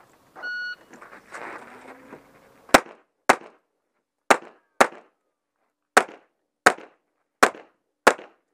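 A shot timer's electronic start beep, then a pistol firing eight shots in four pairs, the two shots of each pair about half a second apart. The first shot comes a little over two seconds after the beep.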